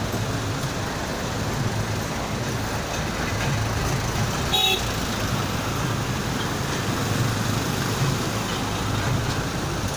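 Steady road traffic noise, with a short vehicle horn toot about four and a half seconds in.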